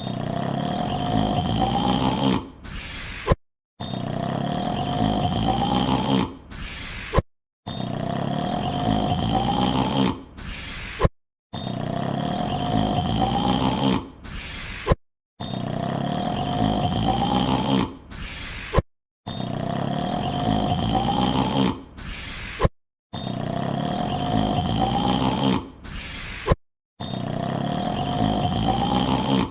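A man's long, voiced yawn, looped: the same yawn of about two and a half seconds repeats roughly every four seconds, about eight times. Each time the pitch rises through the yawn, then it cuts off with a short gap before the next.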